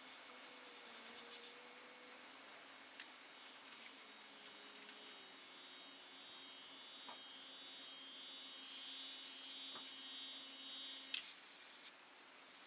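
Airbrush spraying: a brief rapid sputter at the start, then a steady high whine of air that cuts off sharply about eleven seconds in as the trigger is released.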